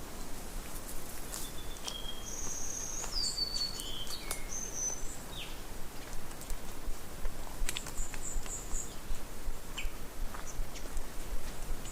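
Birds calling: a string of short whistled notes sliding up and down in pitch, then a quick run of about four high notes a little past the middle, over a steady hiss with scattered small clicks.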